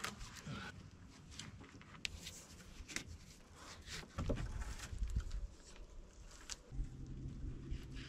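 Scattered light knocks, clicks and rustles of hands handling wooden poles and tying cord on a log wall, with a low rumble on the microphone in the second half.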